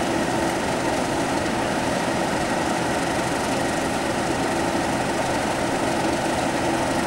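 A pair of Class 37 diesel-electric locomotives idling, their English Electric V12 engines giving a steady drone with a few held tones.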